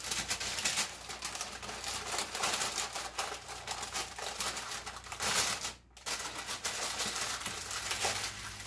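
Parchment paper crinkling and rustling as it is folded and wrapped by hand around a sandwich, in many small crackles, breaking off briefly about six seconds in.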